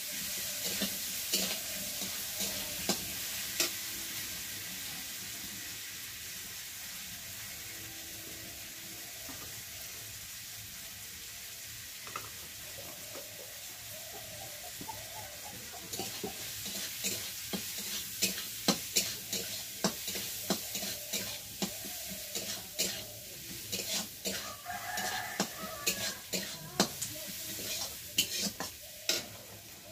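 Chopped vegetables sizzling in oil in a black iron kadai, with a spatula scraping and clinking against the pan as they are stirred. The clinking stops for a while in the middle and comes back more briskly in the second half.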